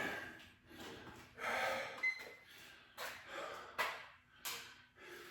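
A man breathing hard, with about five heavy, rasping breaths in and out, short gaps between them. He is out of breath from the exertion of a set of tricep extensions.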